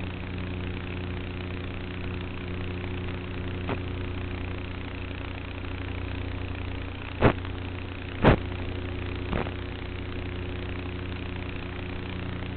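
Steady hum of the E-Flite Apprentice S's electric motor and propeller in flight, holding one even pitch. There are a few short sharp knocks, the two loudest about seven and eight seconds in.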